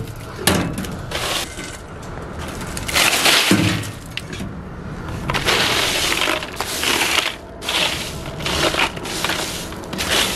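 Ice crunching and rattling in a plastic cooler as a hand digs into it and packs it down, in a string of crunching rushes about a second apart.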